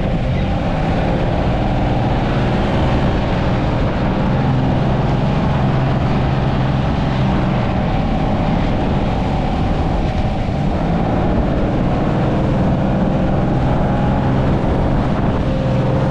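Small fishing boat's engine running steadily under way, over a constant rush of noise.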